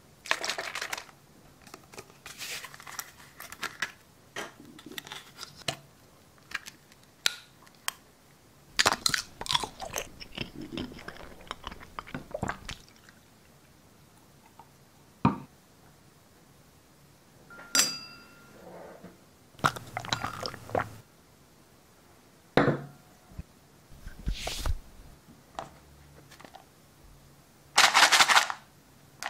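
Close-miked crunching and crackling noises, several loud bursts separated by quiet gaps, with a single short ringing clink of glass about two-thirds of the way through.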